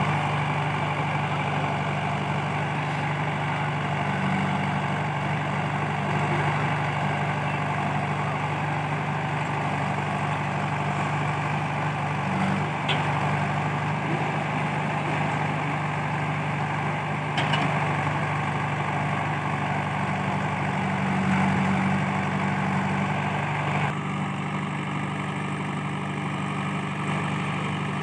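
Diesel engine of a JCB 3DX backhoe loader running steadily as it works, with two brief clinks in the middle. Its note changes about four seconds before the end.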